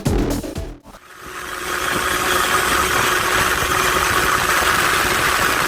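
Electronic music cuts off in the first second, then a Vent Derapage 50cc two-stroke motorcycle engine runs steadily.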